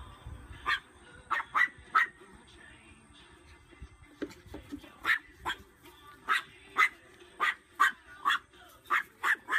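Small dog yapping in short, high-pitched barks: four quick yaps in the first two seconds, then a faster run of about nine from five seconds on.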